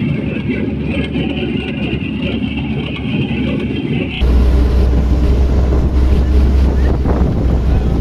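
Engines of a convoy of vintage military vehicles running as they drive past. About four seconds in the sound cuts to a loud, steady low rumble of wind on the microphone, with engines still running.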